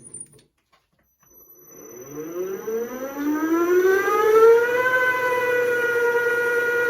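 Small milling machine's spindle motor starting up: its whine rises smoothly in pitch for about four seconds, then holds steady at running speed.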